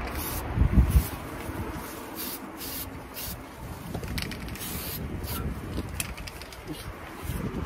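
LIXIL touch-up aerosol paint can spraying in short bursts, a series of brief hisses onto an aluminium door handle. A couple of low thumps about a second in are the loudest sounds.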